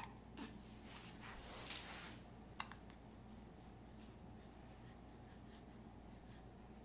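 Near silence: room tone, with a few faint clicks and rustles in the first three seconds.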